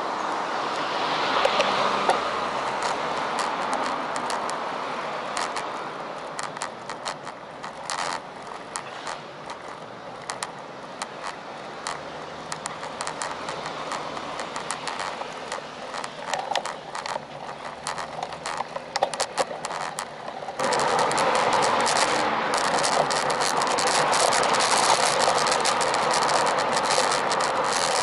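Road bike riding along a city street, heard through a bike-mounted action camera: steady wind and road noise with many sharp clicks and rattles, and cars passing. About two-thirds of the way through, the noise jumps suddenly louder and stays that way.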